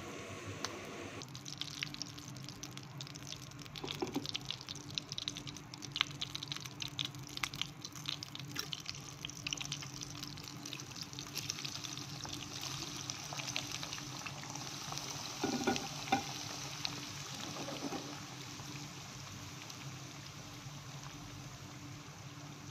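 Potato and eggplant cubes deep-frying in hot oil: steady sizzling with dense crackling and spitting, busiest in the first half. A few soft knocks are heard around the middle.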